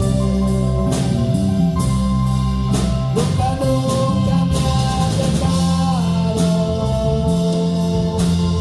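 Live worship band playing a slow praise song: drum kit keeping a steady beat with regular cymbal strikes under bass and held chords.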